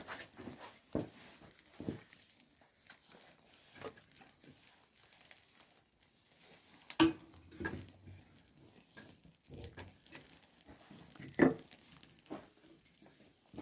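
Scattered small knocks and handling noises of things being moved about by hand, with two sharper knocks, one about halfway through and one near the end.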